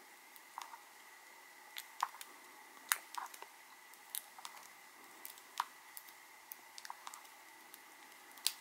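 Small hand cutters snipping and peeling the foil pouch of a lipo battery cell. Sharp, irregular snips and crinkles come every half second to a second.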